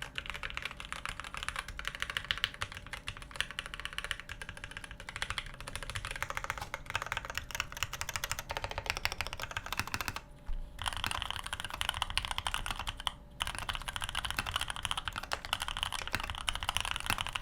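Fast, continuous typing on an OTD 360C custom tenkeyless keyboard with black linear switches, heard up close, with no audible stabilizer rattle or wire ping. The typing pauses briefly about ten seconds in and again about three seconds later.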